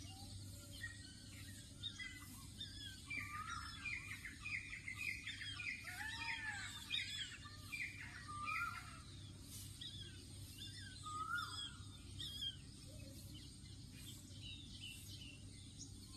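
Several birds chirping and calling at once, busiest a few seconds in, over a low steady background hum.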